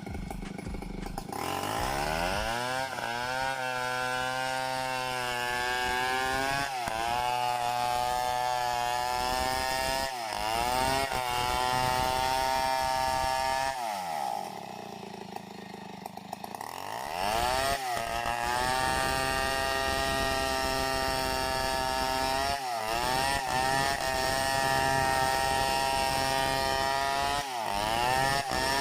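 Two-stroke chainsaw revving up to full throttle about a second in and holding a high, steady pitch while cutting wood. Its speed dips briefly every few seconds, and about halfway through it drops to idle for a few seconds before revving back up.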